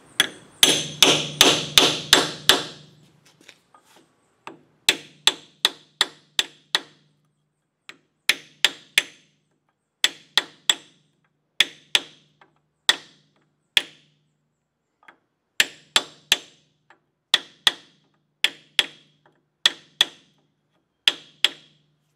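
Hammer driving a small punch against the inner race of a lathe spindle's tapered rear bearing to break the taper: sharp, ringing metal-on-metal taps in quick groups of four to seven, with short pauses between groups.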